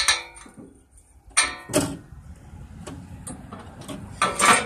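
Metal clanks and rattles from a steel trailer's pin and latch being worked by hand, a few sharp ringing knocks with the loudest near the end.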